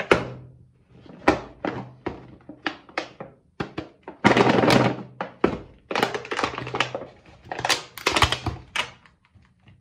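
Clear plastic tub of foil-wrapped chocolates handled on a table: a run of knocks and thunks as it is set down and turned, then denser clattering and rattling as its lid is worked off.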